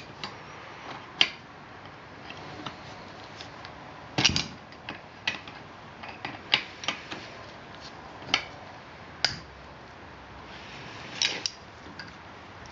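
Scattered sharp metal clicks and clinks of open-end wrenches working an exhaust valve tappet's adjusting screw and locknut on an Onan B43G engine, turning it to open up the valve clearance.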